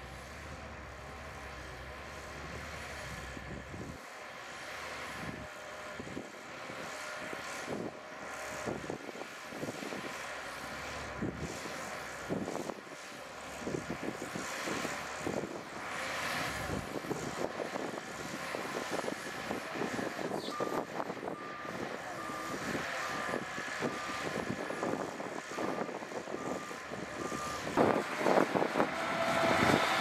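Shantui DH17U-B2 bulldozer's diesel engine running under work, with irregular knocks and clanks. A reversing alarm starts beeping steadily, about one and a half beeps a second, about two-thirds of the way through. The engine grows much louder near the end.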